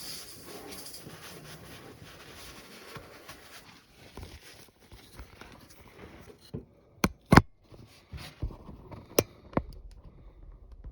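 Hands-on cleaning and handling noise: steady rustling and scraping, then a few sharp clicks and knocks. The loudest are a close pair about seven seconds in.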